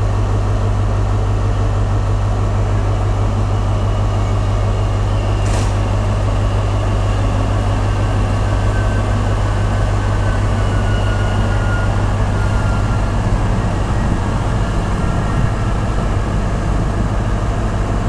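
CrossCountry Voyager diesel multiple unit's underfloor diesel engines running with a steady low drone as the train moves along the platform, with a faint falling whine a little past the middle.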